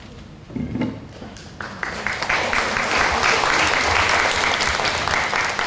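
Audience applauding in a hall, starting about a second and a half in after a short lull and going on steadily.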